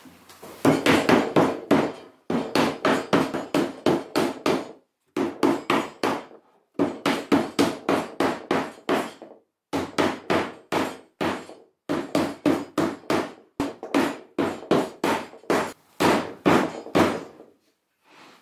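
Rubber mallet rapidly tapping a Baltic birch plywood tabletop to seat it onto the legs. The taps come in quick runs of about five a second, broken by short pauses.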